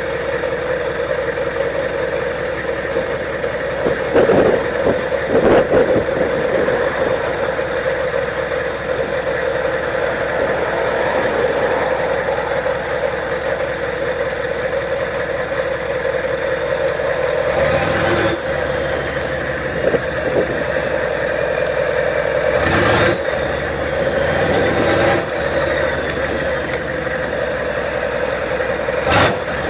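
Straight-piped 6.5-litre Detroit Diesel turbo V8 running under way, a steady drone with a few short louder surges. About three-quarters of the way through, a faint turbo whistle rises and falls.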